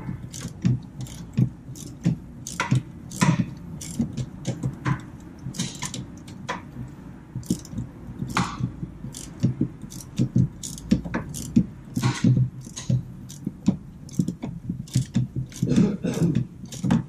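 Socket ratchet clicking and clanking in a long run of short, irregular strokes as the 14 mm nut on a sway bar end link is backed off counterclockwise, its stud held with an Allen key; the rust-prone nut has been cleaned and soaked in WD-40 so that it turns rather than stripping the Allen.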